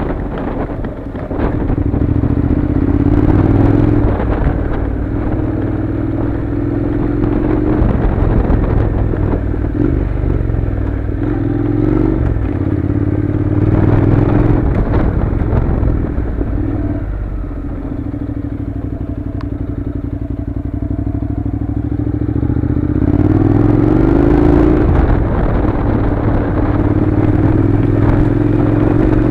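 Honda NC700's 670 cc parallel-twin engine running under way on a gravel track, its pitch rising and falling with the throttle and climbing sharply several times as the bike accelerates. Tyres and chassis clatter and knock over the loose stones.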